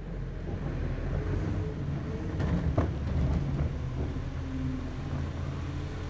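Garbage truck engine running, low and steady, with a few short knocks about two and a half seconds in.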